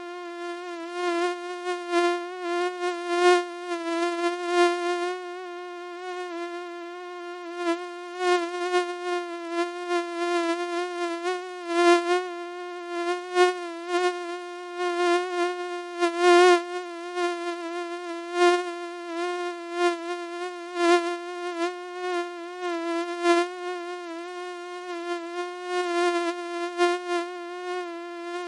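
Mosquito in flight, its wings giving a steady high buzzing whine that wavers slightly in pitch and swells and fades in loudness as it moves.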